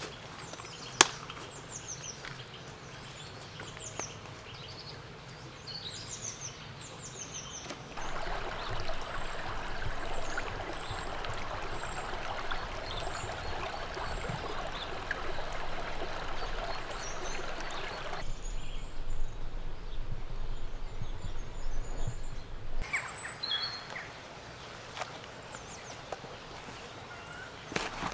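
Winter woodland ambience: small birds chirping with short falling calls and a sharp click about a second in, then a stream babbling steadily for about ten seconds, cutting off abruptly, followed by more scattered bird chirps.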